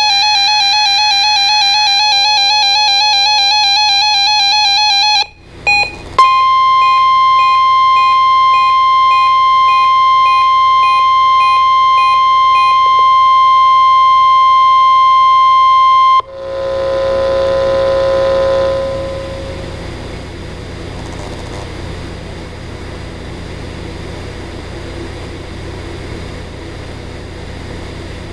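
An electronic warbling tone sounds for about five seconds and breaks off. Then the National Weather Service 1050 Hz warning alarm tone holds one steady pitch for about ten seconds, with faint beeps about once a second under its first half. The alarm tone cuts off abruptly into radio static hiss, with a low tone fading out over the next few seconds.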